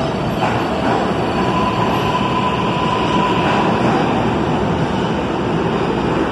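New York City subway train running past along the station platform: a loud, steady rumble of wheels on rail, with a faint steady high tone through the middle of it.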